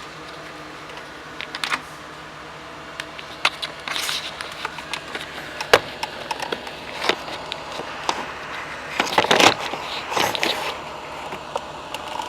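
Scattered clicks, taps and clatter of hard parts being handled, busiest in a run of rattling about nine to ten and a half seconds in, over a steady low hum.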